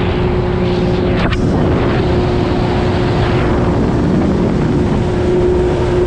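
Jet ski engines running at speed, a steady drone mixed with the rush of water spray and wind on the microphone, with a brief click about a second in.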